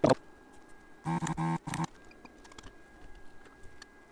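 Light clicks and taps of hand tools working resistors off a scorched circuit board, opening with a sharp knock. About a second in there is a short steady-pitched hum in two parts, and a faint high whine sets in about two seconds in.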